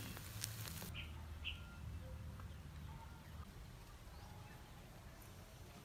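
Chicken feet sizzling and crackling on a wire grill over a charcoal brazier, cut off suddenly about a second in. After that comes faint outdoor quiet with two short bird chirps and a few faint distant calls.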